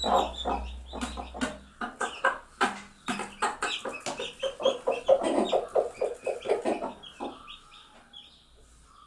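Mother hens clucking in quick runs of short calls, the food call that tells their chicks feed is there. The clucking dies away after about seven seconds.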